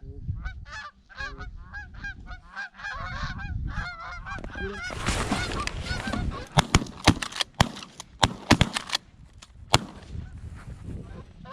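A flock of Canada geese honking as they come in over the decoys. About two-thirds of the way in, a rapid volley of about ten shotgun shots breaks out as several hunters open fire.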